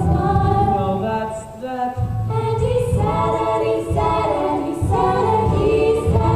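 A group of girls singing together in a stage-musical number, holding long notes over a steady low accompaniment, with a brief break just under two seconds in.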